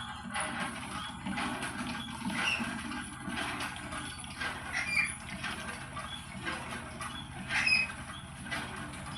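Pet green parrot making scratchy, clicking, rustling noises with a few short high squeaks, the loudest about seven and a half seconds in.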